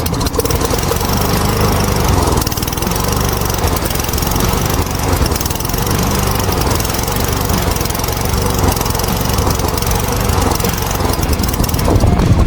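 Small lawnmower engine running steadily at speed.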